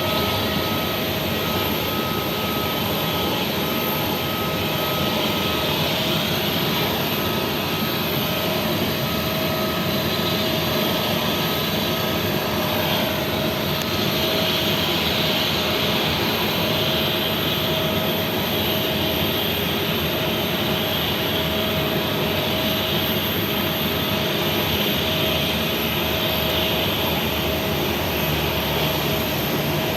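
Jet airliner engines running at low taxi power: a steady rumble and hiss with a constant whine.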